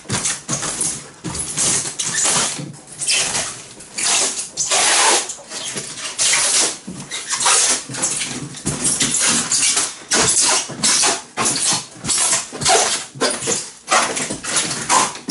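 Plastic stretch wrap over a cardboard box rustling and crinkling as hands rub and smooth it down, in quick, irregular bursts.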